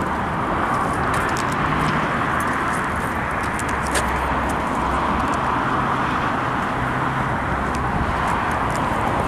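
Steady rush of road traffic, with faint footsteps scuffing on pavement.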